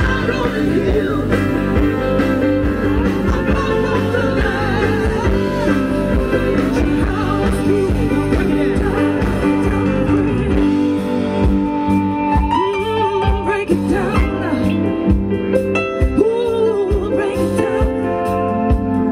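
Live rock band playing on an outdoor stage PA: a woman singing lead over electric guitar and keyboard. The deep bass drops back about halfway through, and she holds several long notes after that.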